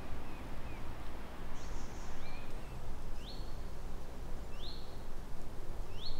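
A bird calling repeatedly, a short rising note every second or so, over a steady low background rumble.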